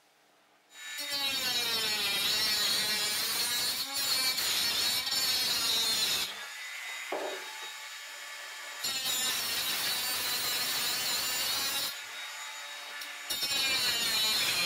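Compact cordless cut-off tool cutting through spiral-reinforced clear plastic hose, its whine rising and falling as it bites. It starts about a second in and cuts in three loud spells, easing off in between.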